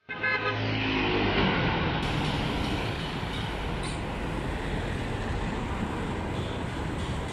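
Road traffic passing close by: a steady rush of cars and a motorcycle driving past, with a pitched engine note in roughly the first second.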